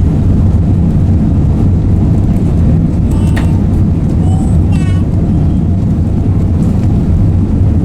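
Steady, loud low rumble of an Airbus A380 heard inside the main-deck cabin: Rolls-Royce Trent 900 engine and airflow noise filling the cabin, with faint brief voices in the middle.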